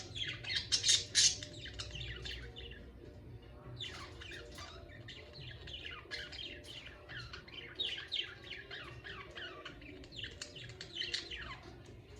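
Budgerigars chirping in rapid runs of short, high chirps, loudest in the first second or so, easing off briefly, then chirping again.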